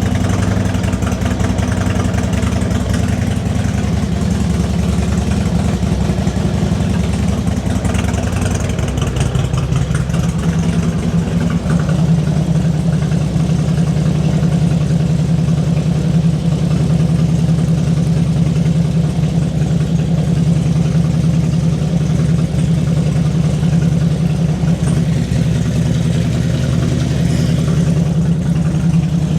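2002 Harley-Davidson Road King's Twin Cam 88 V-twin idling steadily, its note changing about eleven seconds in. It is running cold just after being started off a battery charger, which showed the no-start was a weak battery and not the starter.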